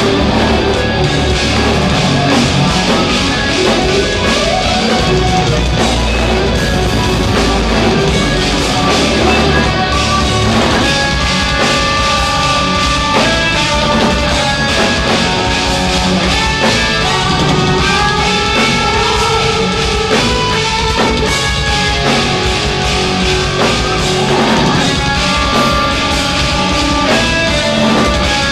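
Instrumental progressive metal band playing live: 8-string electric guitars and a drum kit, loud and continuous, with sustained melodic guitar lines coming forward from about a third of the way in.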